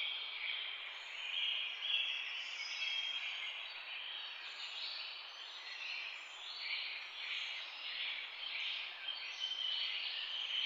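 Dense chorus of many birds calling over one another, a steady chatter with no single call standing out.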